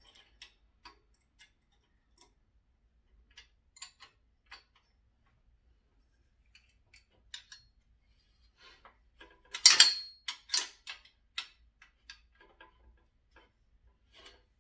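Scattered light clicks and metallic clinks of bolts, nuts and tools being handled against a steel stand, with a louder flurry of clinks about ten seconds in.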